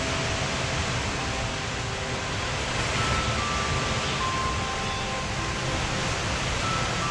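Steady rush of a swollen valley stream, an even noise with no breaks.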